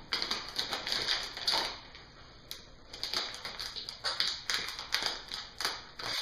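Small plastic Lego bricks clicking and clattering against each other as they are handled and sorted into piles, an irregular run of light clicks with a brief lull partway through.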